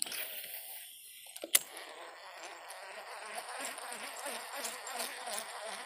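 Sharp click about a second and a half in, then a fishing reel being cranked steadily in a lure retrieve: a whirring with a soft beat about three times a second.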